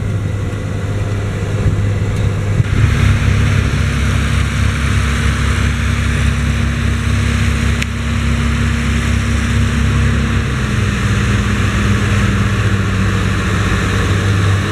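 Schlüter Super Trac 2200 TVL-LS tractor's six-cylinder Liebherr diesel running steadily under load, pulling a six-furrow reversible plough through the soil. The engine note drops slightly about ten seconds in.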